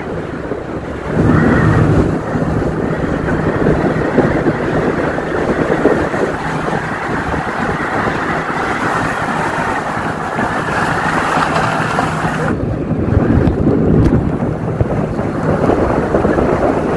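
Wind buffeting the phone's microphone and water rushing and splashing as an inflatable banana boat is towed at speed, with the steady hum of the tow boat's engine underneath.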